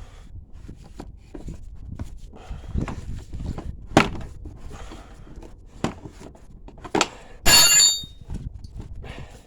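Hand tools and metal parts knocking and clanking while bolts are taken out of a dirt bike's rear end. There is a string of light knocks and clicks, sharp knocks about four and seven seconds in, and then a loud, ringing metal clang lasting about half a second.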